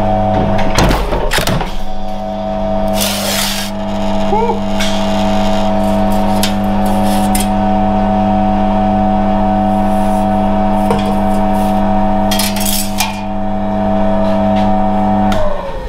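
Single-phase electric motor and belt drive of an AP Lever sheet-metal guillotine running with a steady hum, broken by short noisy bursts about a second in, around three seconds and about twelve seconds in. Near the end the motor is switched off and its hum slides down in pitch as it spins down.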